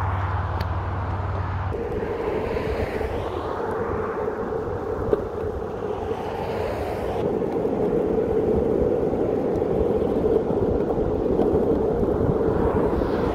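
Skate wheels rolling steadily on asphalt, settling into an even hum about two seconds in.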